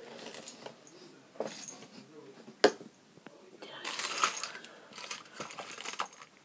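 Close handling noises: a sharp click a little under three seconds in, then bursts of rustling and scraping with small clicks.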